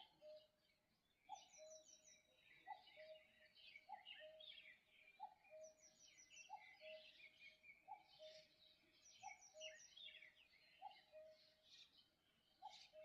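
Faint dawn birdsong: several small birds chirping and trilling, over a lower two-note call, a short higher note then a held lower one, that repeats steadily about three times every four seconds.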